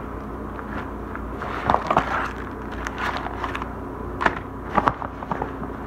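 Rustling and crinkling of a waterproof dry-bag liner being opened and rummaged through by hand, with irregular sharper crackles and knocks, loudest about two seconds in and again after four seconds.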